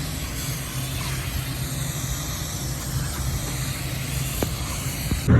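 Packaged rooftop HVAC unit running, a steady low hum with a hiss of moving air over it. Near the end the sound jumps suddenly louder.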